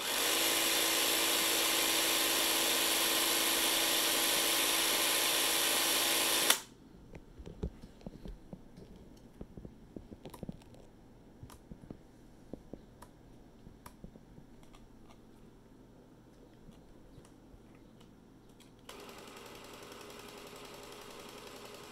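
Canon DS-8 Super 8 film camera's motor running with a steady whirr and hum for about six and a half seconds, then stopping with a sharp click. Small handling clicks and taps on the camera body follow, and near the end the motor runs again, more quietly.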